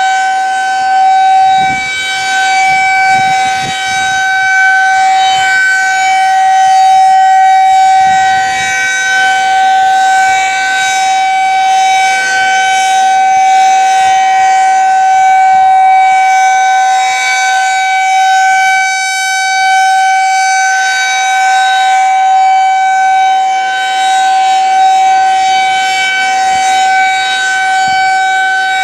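Federal Signal 2001-SRNB outdoor warning siren sounding a monthly test, holding one steady, loud tone at full speed with no rise or fall in pitch.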